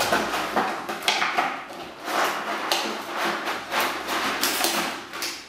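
Stiff clear plastic packaging crackling and rustling as it is handled and pried apart, with scattered sharp clicks and taps.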